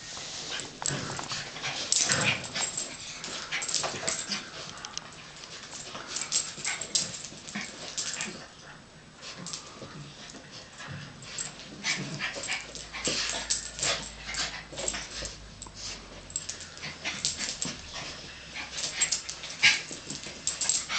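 Two Yorkshire terriers play-fighting: many short, sharp dog vocal sounds and scuffles in irregular bursts.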